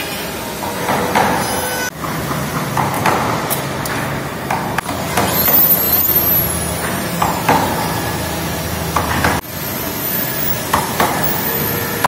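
Woodworking workshop din: hand tools knocking and scraping on timber, with a power tool's high whine spinning up and winding down twice.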